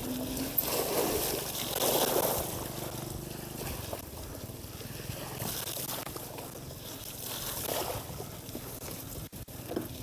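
Mountain bike rolling over a wet, muddy dirt track: a steady rush of tyre and ride noise with wind on the microphone, louder for a moment about two seconds in.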